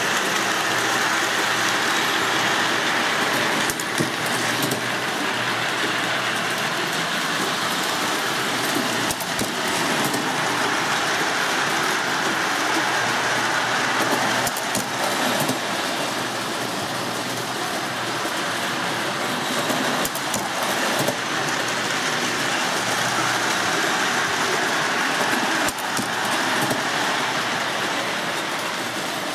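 O-gauge toy train running around the layout's track: a steady whir and rumble of motor and wheels, with a few faint clicks.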